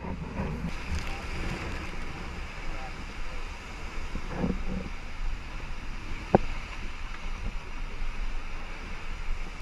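Wind buffeting the microphone over steady water noise on open water, with a couple of short knocks in the middle.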